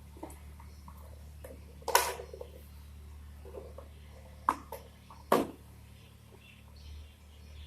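Three loud, sharp knocks, about two, four and a half and five and a half seconds in, with lighter clicks between, over a steady low hum.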